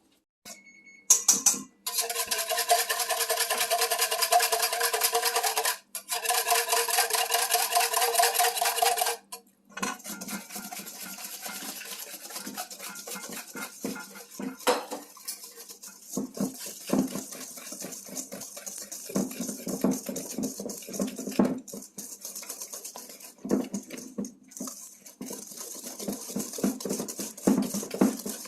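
A small electric kitchen motor runs steadily for about seven seconds, cutting out briefly once midway. Then utensils clink and scrape against a mixing bowl and dishes.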